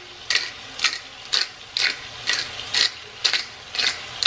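Black pepper grinder being twisted by hand, its grinding top ratcheting in a steady run of crisp clicks about twice a second.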